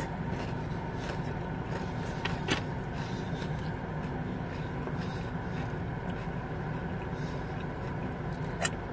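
Steady hum of a car's running engine heard inside the cabin, with two short sharp clicks, one about two and a half seconds in and one near the end.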